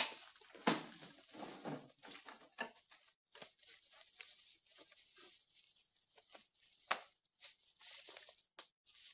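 Faint, scattered knocks and rustles of handling in a quiet room, the loudest a knock about a second in. A sheet of paper rustles near the end.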